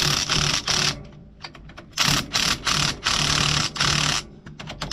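Cordless impact wrench running in short bursts, stopping and starting several times, as it drives home the bolts of a center-pivot irrigation drive-shaft coupler.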